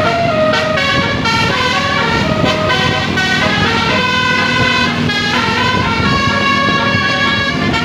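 A bus's basuri musical air horn playing a telolet tune: a run of held horn notes stepping up and down in pitch, over a steady low rumble.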